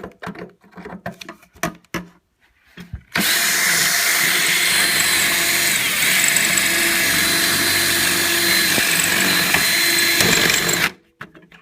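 A few sharp clicks, then a power drill running steadily at high speed for about eight seconds as its bit drills the head off a stripped hex screw; it stops suddenly near the end.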